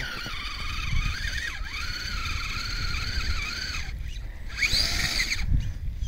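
Electric drive of a Kyosho Blizzard EV RC snowcat whining as it crawls through deep fresh snow, the pitch wavering with the throttle. It stops about four seconds in, then revs once in a short rise and fall and cuts off.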